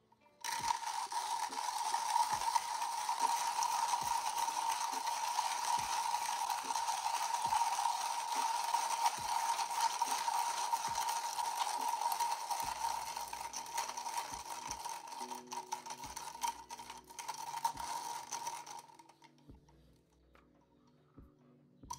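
Comandante C40 hand coffee grinder grinding beans through its conical burrs: a steady dense crunching with a faint knock about once per turn of the crank. It starts just after the beginning and stops abruptly about 19 seconds in.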